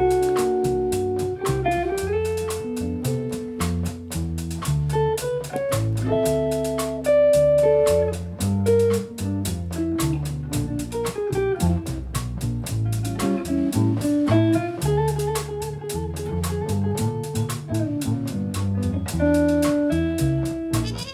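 Jazz quartet playing a swing tune live, led by hollow-body electric guitar over walking upright bass and drum kit, with a steady cymbal pulse.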